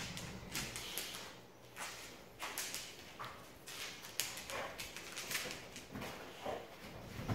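Boxer dog playing with a plush toy and scrambling up onto a leather couch: an irregular run of short, sharp scuffling and clicking noises.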